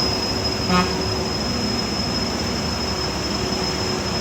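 Heavy truck running under load on a steep climb: a steady, dense mechanical noise with a constant high-pitched whine over it. There is a short beep about a second in.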